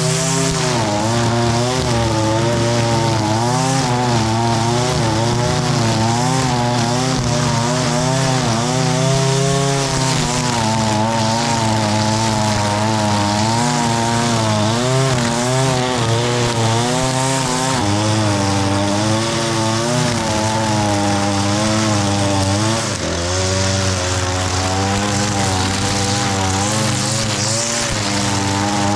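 Echo SRM-225 gas string trimmer's small two-stroke engine running at high throttle as the line cuts through tall, overgrown grass, its pitch wavering up and down. The revs dip briefly about three quarters of the way through.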